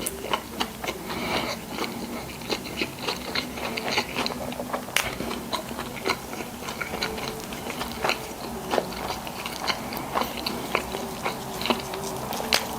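Close-miked eating of a burger-and-fries meal: irregular chewing with many sharp wet mouth clicks and crunchy bites.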